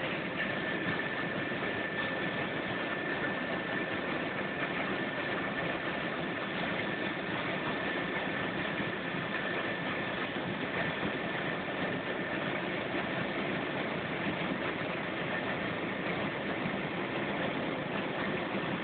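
Helicopter in flight heard from inside the cabin: steady engine and rotor noise with a constant high-pitched whine.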